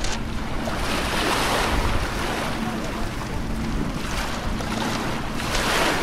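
Small waves washing in over a pebble shore, swelling twice: about a second in and again near the end. Wind rumbles on the microphone throughout.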